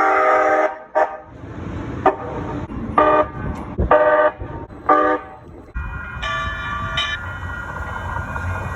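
Calgary CTrain light-rail train sounding its horn: one longer blast, then five short toots about a second apart. About six seconds in comes a higher, steadier ringing tone over the steady rumble of the train.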